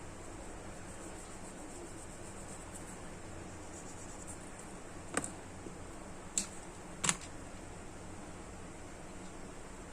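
Three short, sharp clicks about five, six and a half, and seven seconds in, over a steady faint hiss.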